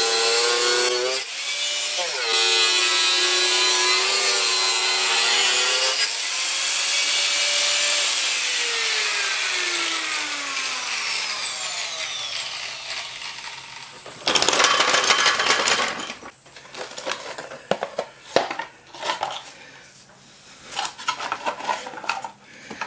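Small angle grinder with a cutting disc cutting into the plastic back of an LCD monitor, its motor whine sagging and recovering under load. About six seconds in it is switched off and winds down in a long falling whine. About fourteen seconds in there is a loud rough noise, followed by scattered clicks and knocks as the cut monitor is handled.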